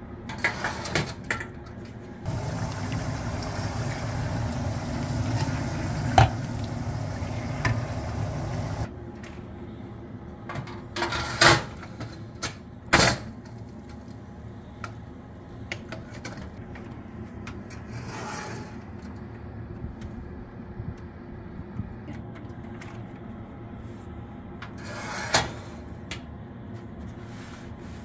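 Oven door and metal baking tray being handled: a handful of sharp clunks and knocks spread through, over a steady fan hum. A louder rushing noise starts about two seconds in and lasts about seven seconds.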